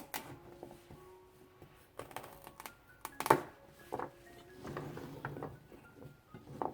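Knife cutting through celery stalks on a cutting board: a handful of crisp, crunchy cuts spaced a second or so apart, the loudest about halfway through, with a denser crackly stretch soon after. Soft background music plays underneath.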